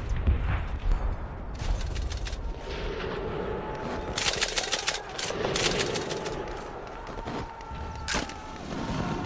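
Battlefield gunfire: rapid bursts of rifle and machine-gun fire over a low rumble, with a single sharp shot near the end.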